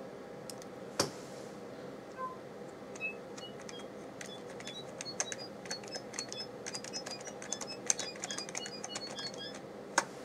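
Crystal FM synthesis sound card playing the General MIDI 'Bird Tweet' sound effect: short, high electronic chirps, a few spaced out at first, then a quick run of them at varying pitches, many with a key click. A sharp click comes about a second in and another near the end.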